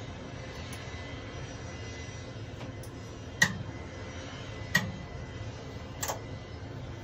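Three short, sharp clicks spaced over a second apart, the first the loudest, as the buttons of a Gulfstream G450's oil replenishment panel display are pressed, over a steady mechanical hum with a faint high whine.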